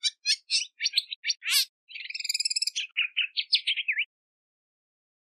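Woodswallow calling: a run of short, sharp chirps, a quick chattering trill about two seconds in, then more chirps, stopping about four seconds in.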